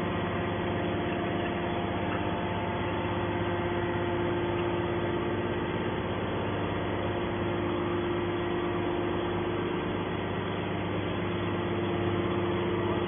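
Hydraulic scrap metal baler's power unit running with a steady hum as the ejector ram slowly pushes a compressed bale out of the chamber.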